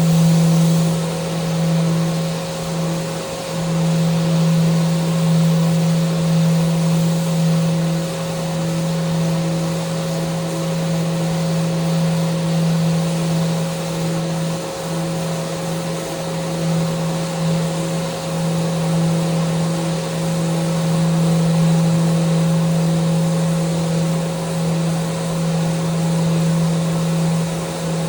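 Power sander running steadily on a mounted handrail: a constant motor hum over an even hiss, with small dips in level.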